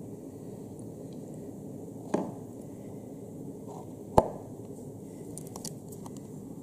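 Two sharp knocks about two seconds apart, the second louder, over a steady low background hum, with a few faint clicks after them.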